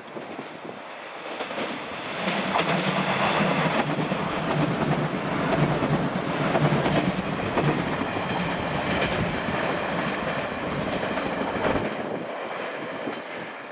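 JR West 115 series 3000-subseries four-car electric train passing close by: wheels clacking over the rail joints over a steady low hum. It builds up about two seconds in, is loudest as the cars go by, and fades as the train draws away near the end.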